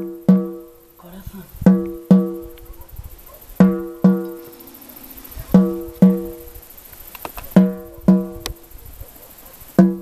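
Shamanic frame drum struck with a beater in a slow double beat: two strokes about half a second apart, the pair repeating about every two seconds, five pairs in all. Each stroke rings with a low tone that dies away before the next.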